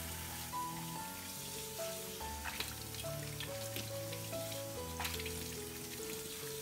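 Tap water running onto soapy dishes in a stainless steel sink as they are washed by hand, with a few light clinks of dishes about two and a half, three and a half and five seconds in. Light background music plays throughout.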